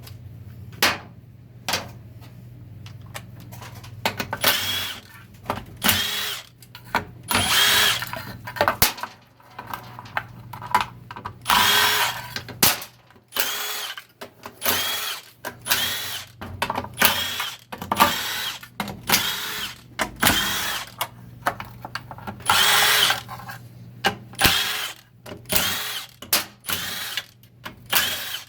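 A handheld power tool run in many short bursts, each a second or less, about twenty over the half minute, each with a brief whine, over a steady low hum.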